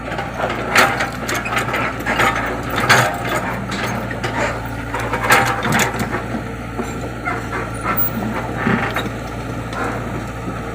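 Komatsu excavator running with a steady low engine hum, under repeated irregular metallic clanks, knocks and short squeaks from the working machine.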